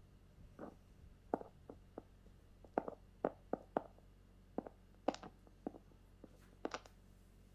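Faint, irregular clicks and taps, about twenty of them, some in quick clusters, over a low steady hum.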